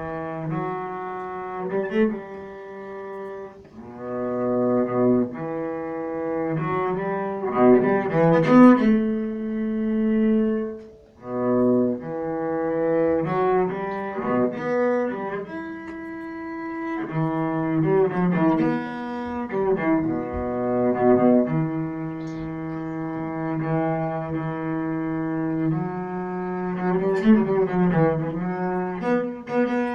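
A cello played with the bow, a solo piece of long held notes broken by quicker passages about eight seconds in and again near the end, with a brief pause about eleven seconds in.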